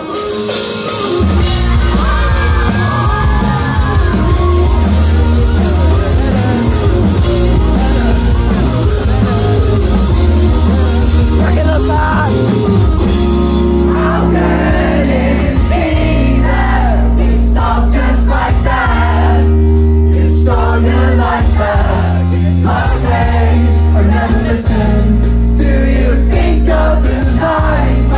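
Live band playing a song with a lead singer, recorded from the audience. A heavy bass comes in about a second in, and the vocals grow stronger about halfway through.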